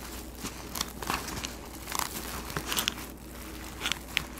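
Food packaging crinkling and crackling as it is handled and opened, a run of short irregular crackles.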